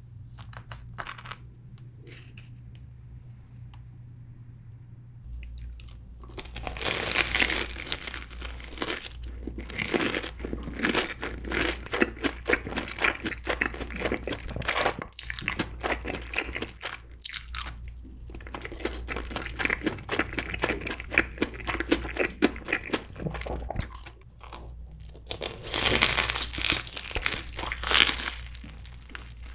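Close-miked biting and chewing of a crispy deep-fried Korean corn dog covered in cheddar cheese sauce: dense crunching of the batter crust. It starts about six seconds in after a few faint handling clicks, and a fresh bite brings louder crunching again near the end.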